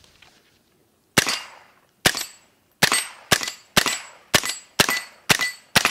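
AR-15-style semi-automatic rifle firing nine shots. The first two come about a second apart, then the rest follow at about two shots a second, each with a short decaying tail.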